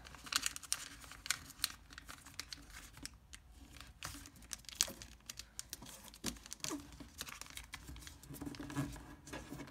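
Thin sheet of origami paper being folded and creased by hand: irregular rustling and crinkling with many small, sharp crackles.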